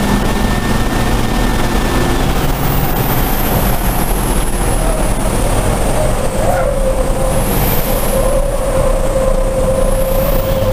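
Racing truck's diesel engine and road and wind noise heard from inside the cab at racing speed, a steady loud drone. From about halfway through a steady whine runs under it, and a faint high whistle rises and falls.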